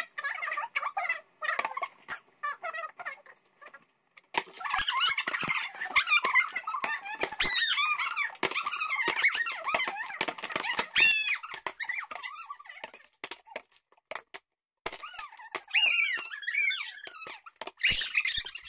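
Plastic bags and a plastic water bottle crinkling and squeaking as they are handled close to the microphone, in stretches of dense crackle with short squeaks, stopping briefly twice.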